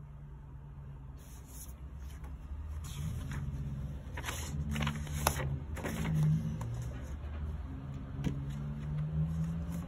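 Paper inner sleeve rustling and scraping as a vinyl record is slid into it, with small taps and clicks that are loudest around the middle, over a steady low hum.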